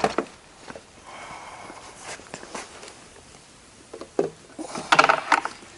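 Footsteps on a concrete floor and handling noise as a corded control box is carried and set down: a sharp knock at the start and a scatter of light clicks and knocks.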